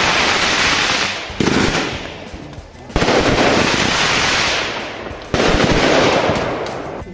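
Fireworks going off in a display: a string of loud bursts, each starting suddenly with a hissing crackle that dies away over a second or two, the strongest about three seconds and five seconds in.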